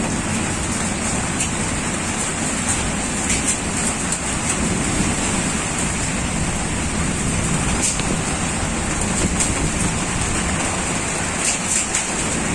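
Heavy downpour of rain: a steady, even hiss with scattered sharp drop taps.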